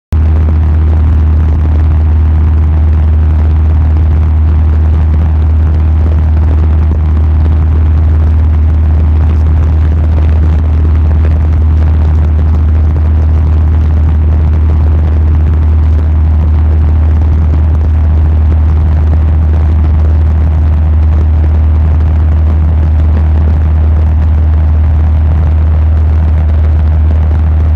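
Steady drone of a light aircraft's engine heard inside the cabin in flight: a loud, even low hum that holds the same pitch throughout.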